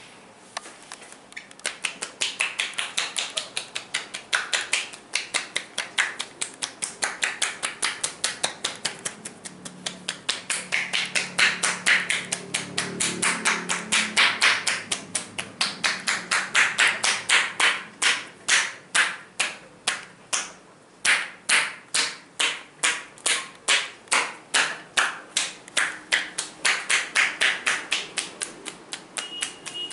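Rapid, rhythmic hand strikes of a percussive back massage, about four a second, rising and falling in loudness in waves.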